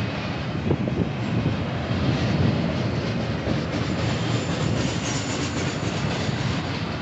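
Union Pacific intermodal freight train cars rolling past: a steady rumble and rattle of steel wheels on the rails, with clicks as the wheels cross the rail joints.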